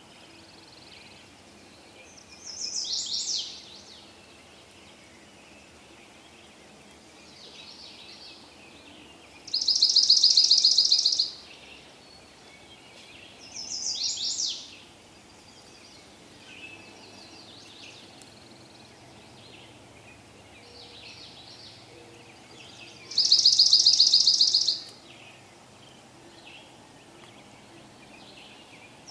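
Forest ambience with birds calling over a faint steady background: short high calls about 3 and 14 seconds in, two loud, fast trills lasting under two seconds each about 10 and 24 seconds in, and fainter calls in between.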